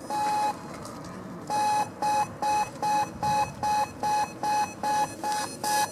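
Pedestrian crossing signal's audible beeper: one beep, a pause of about a second, then short, quick beeps at the same pitch, about two and a half a second. The quick beeping means the green man is showing.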